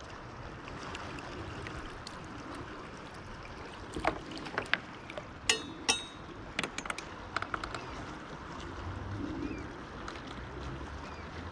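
Fishing pliers and tackle being handled on a kayak: a cluster of sharp clicks and knocks from about four to seven and a half seconds in, two of them with a short metallic ring, over steady low water and wind noise.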